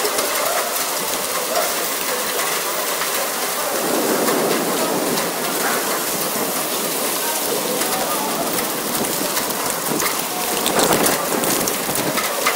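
Torrential wind-driven rain in a severe thunderstorm: a loud, steady hiss of rain and storm wind, dense with small pattering hits, swelling about four seconds in.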